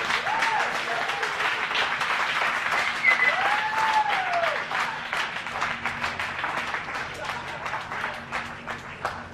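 A roomful of people applauding, with a couple of long rising-and-falling cheers. After about halfway the clapping thins out and grows quieter, down to scattered claps near the end.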